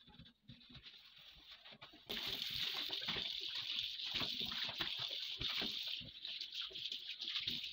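A few faint knocks and rubbing, then about two seconds in the kitchen tap comes on. Water runs and splashes into a stainless steel sink while hands scrub and rinse under the stream.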